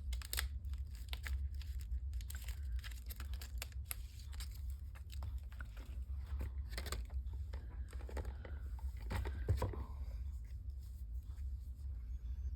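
Paper and cardstock pieces being handled: irregular rustling, crinkling and small taps, over a steady low hum.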